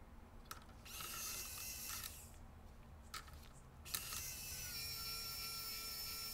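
Hot air rework tool blowing in two bursts of hissing air with a steady whine, the first about a second and a half long and the second about two and a half seconds, each starting with a click.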